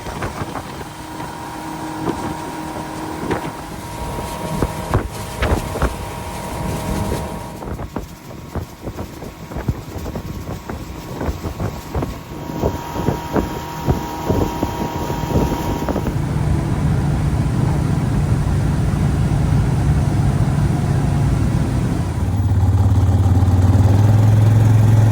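Boat motor running across several short clips, with scattered knocks and wind noise in the first half; the motor's steady hum grows louder and lower in the last few seconds.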